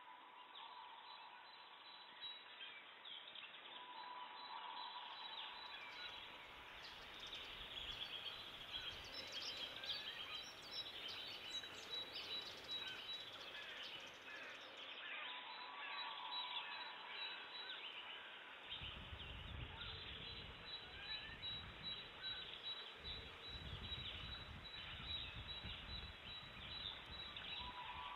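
Many birds calling at once, a dense run of short, overlapping chirps and calls. A low rumble joins in about two-thirds of the way through.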